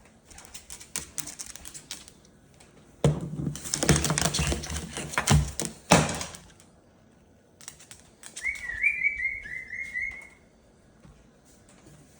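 A Moluccan cockatoo scuffling with a toy parrot: rapid clattering knocks and rustling, loudest for about three seconds in the middle. Near the end comes a quick string of short, high, rising chirps, lasting about two seconds.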